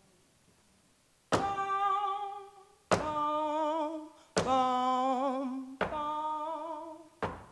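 Vocal percussion and singing: four long sung notes with vibrato, each opened by a sharp mouth-made thump, about a second and a half apart. Near the end, quicker short thumps without notes.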